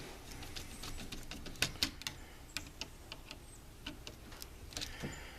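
Screwdriver tightening the green ground screw on a GFCI receptacle: a scatter of small, irregular clicks and ticks.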